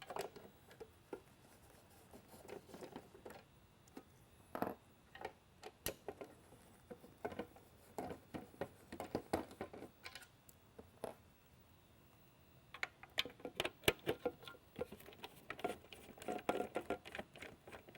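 Screwdriver backing out the small screws that hold the strobe beacon units to a mini lightbar's base, with handling of the parts: scattered light clicks and ticks that come thick and fast in two stretches near the middle and toward the end.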